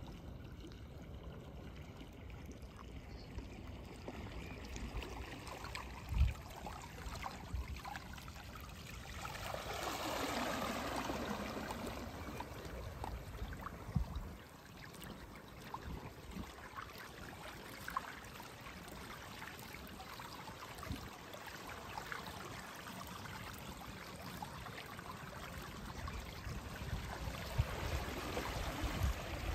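Water rushing and trickling past the floats of a pedal-driven water bike moving across calm water, with a louder surge of rushing water about ten seconds in and a few brief low thumps.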